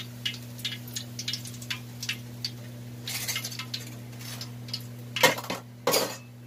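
Hot deep-frying oil crackling with scattered small pops as a fried pork leg is lifted out and drains, the heat already off. Two louder knocks come about five and six seconds in.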